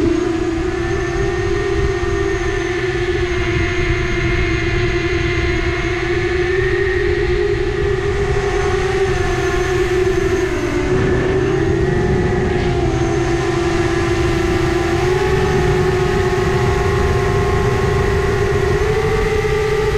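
Drone motors and propellers running in flight: a steady whine with several layered tones that dips briefly in pitch about halfway through and then climbs slightly, over a low rumbling rush of air.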